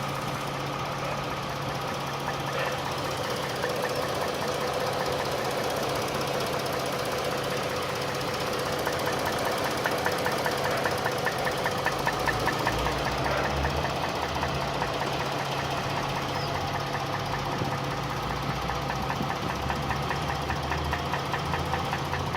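V6 engine running with a fast, regular knock over its steady drone. The knock is clearest about ten seconds in and again near the end.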